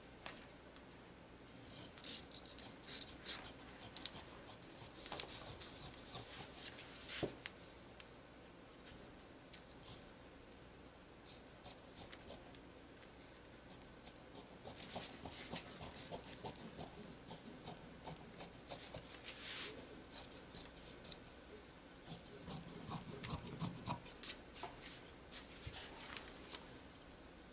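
Fabric shears cutting through knit fabric along a paper pattern's edge: quiet, irregular snips of the blades, with the shears sliding and rubbing on the cutting table between cuts.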